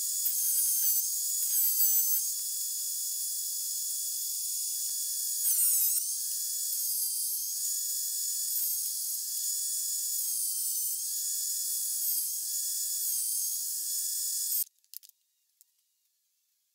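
Benchtop thickness planer running with a high motor whine while beech boards are fed through it. The pitch sags and a rasping cut swells each time a board bites, most deeply about six seconds in. The sound stops abruptly near the end, leaving a few faint clicks.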